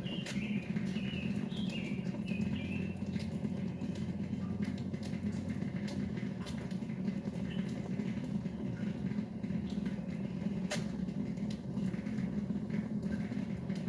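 Water from a garden hose pouring steadily into a septic pump tank, a continuous low rushing as the tank fills, with a few faint high chirps in the first few seconds.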